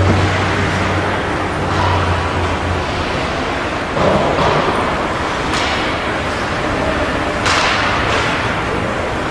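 Ice hockey play echoing in an indoor rink: a steady wash of skates scraping the ice under a low hum, broken by several sharp knocks of sticks, puck and boards.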